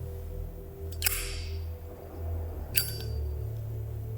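Zippo lighter's hinged metal lid being flipped open and snapped shut: two sharp metallic clicks, about one and three seconds in.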